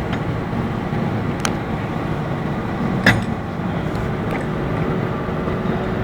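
Centre lathe running with a steady mechanical hum, a few sharp clicks cutting through it, the loudest about three seconds in.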